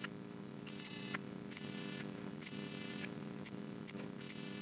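Faint, irregular clicks of a computer mouse, about eight or nine short clicks, over a steady electrical mains hum.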